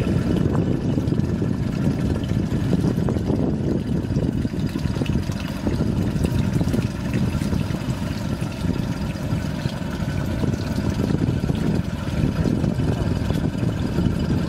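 Small fishing boat's engine running steadily, a continuous low rumble.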